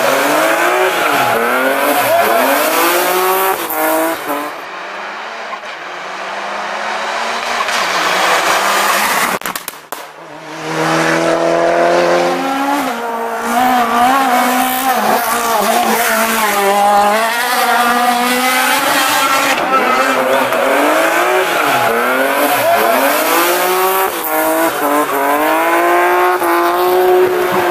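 Rally cars taken hard through bends one after another, engines revving high and dropping back on each gear change and lift, with tyre squeal. A short lull about ten seconds in before the next car comes through.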